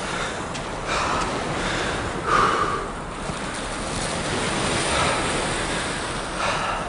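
Sea surf washing onto a beach, a continuous rush of noise that swells and eases. A few short brighter sounds sit over it, the loudest about two and a half seconds in.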